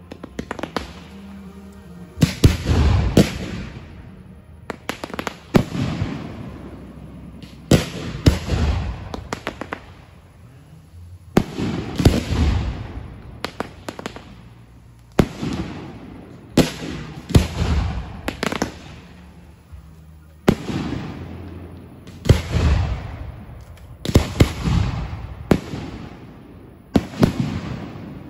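Fireworks going off in a long series of sharp bangs, often two or three close together, each followed by a fading crackle, about one every one to two seconds.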